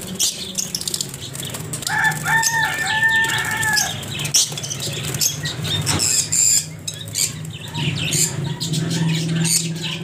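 Fischer's lovebirds flapping their wings hard inside a wire cage, fluttering and knocking against the bars as a hand reaches in to catch them. A short, steady two-pitched call sounds about two seconds in.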